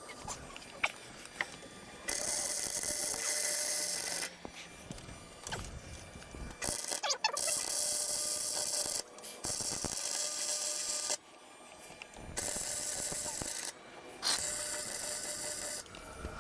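Wire-feed welder arc crackling in four separate runs, each lasting one to a few seconds, as the spider gears of a Mustang's rear differential are welded solid. Short pauses with light clicks fall between the runs.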